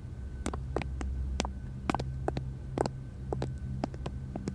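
Footsteps of shoes on a hard floor, sharp clicks about two a second, over a low drone whose upper tone swells and fades.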